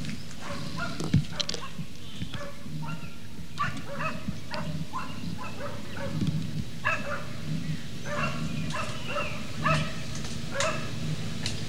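A dog barking and yipping in repeated short, irregular bursts, excited barking at a bear up a tree. A single sharp thump about a second in.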